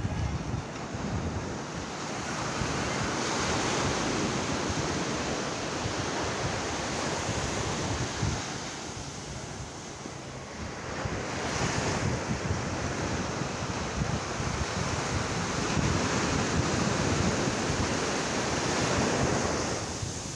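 Ocean surf breaking and washing up the beach, swelling and easing over several seconds, with wind buffeting the microphone.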